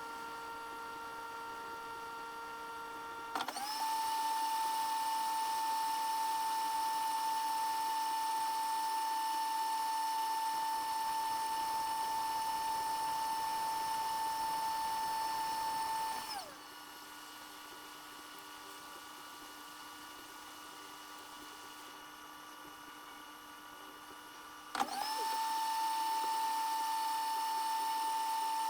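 Hot air rework station blower running with a steady whine. It steps up to a louder, higher whine a few seconds in, drops back to a lower, quieter hum about halfway through, and steps up again near the end.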